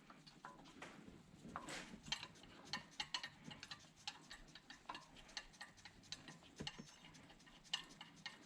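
Faint, irregular small metallic clicks and ticks, several a second, as the new aluminium tensioner bolt is turned and threaded in by hand.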